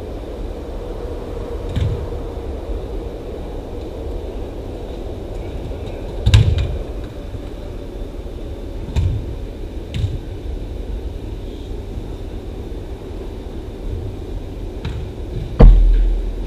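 Soccer ball being kicked and thudding on the play of an indoor cage game: about six scattered thumps over a steady low hum, the loudest near the end with a low rumbling tail.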